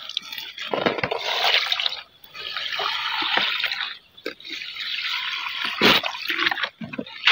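Water pouring through a perforated plastic basin onto the soil in planting sacks, a steady splashing hiss in spells of a second or two with short breaks. A few sharp knocks from the plastic containers being handled come in the second half, the loudest at the very end.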